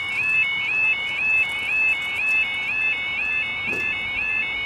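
Level crossing audible warning alarm sounding its repeating two-tone warble, about two cycles a second.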